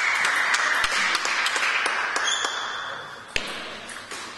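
Table tennis ball clicking off bats and table in quick succession, a run of sharp ticks a few tenths of a second apart over a steady hiss of noise that fades out after about three seconds. One louder, sharper knock stands out about three and a half seconds in.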